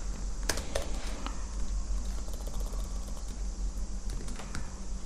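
Computer keyboard typing: a handful of scattered, irregular key clicks over a steady low background hum.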